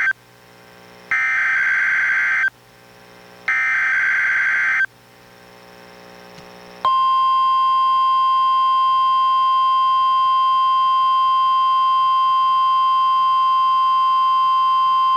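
NOAA Weather Radio Required Weekly Test received on a weather radio. The first SAME digital header burst ends right away, and two more buzzy data bursts follow about a second apart. After a short pause the steady 1050 Hz warning alarm tone comes on about seven seconds in and holds.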